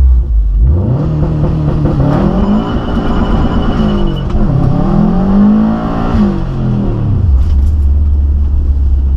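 2014 Subaru WRX's turbocharged flat-four engine, with aftermarket downpipe and exhaust, accelerating hard. The pitch climbs from a low drone about a second in, dips and climbs again midway, then drops back to a steady low drone near the end as the throttle is lifted.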